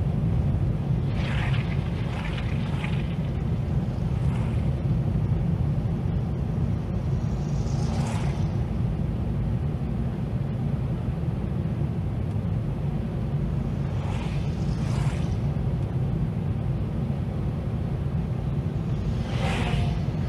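Steady low rumble of a car's engine and tyres on the road, heard from inside the moving car. Brief whooshes of oncoming vehicles passing come several times, the last as a van goes by near the end.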